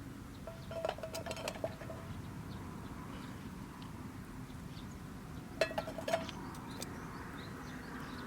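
Metal cookware and utensils clinking in two short clusters, about a second in and again near six seconds, each with a brief ringing note, over steady low background noise.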